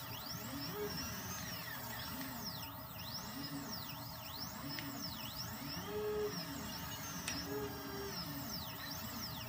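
Cobblebot 3D printer's stepper motors driving the print head, their tones sweeping up and down in pitch with each move over a steady hum.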